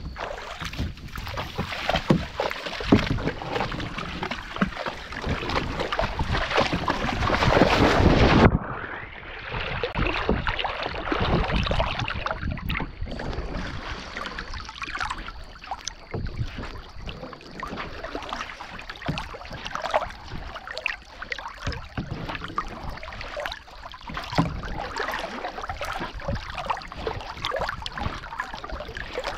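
Water splashing and sloshing right at a GoPro mounted on a swimming dog, with wind buffeting the microphone. About eight seconds in, the sound abruptly turns duller as the high end drops away.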